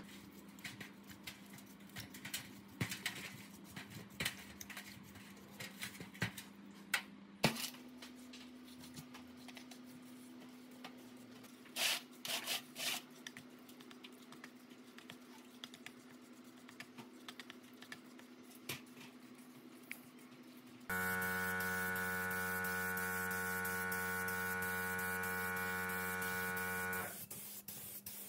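Bristle brush scrubbing an electric motor's rotor and stator housing in a metal tray of cleaning liquid, with scattered light taps and scrapes. About three-quarters of the way through, a loud steady buzz with many overtones starts abruptly and stops about six seconds later.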